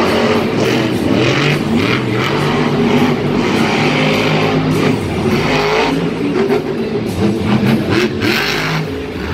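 Monster truck engines revving hard and easing off, their pitch rising and falling again and again.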